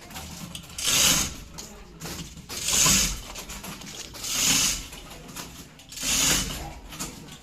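Manual chain pulley block being hauled hand over hand to lift a heavy diesel generator: the chain rattles through the block in four even bursts, one with each pull, about every second and a half to two seconds.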